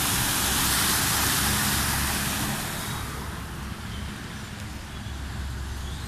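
Toyota Land Cruiser ambulance driving through floodwater close by: a loud hiss of spray thrown up by its wheels over the low run of its engine, dying away after about three seconds as it passes.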